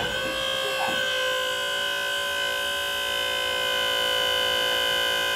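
Several steady electronic tones held together as one unchanging chord, like a drone.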